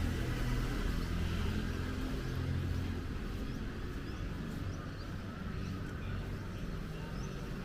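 Motor vehicle engine running close by, a low rumble that fades after the first few seconds, over steady street traffic noise.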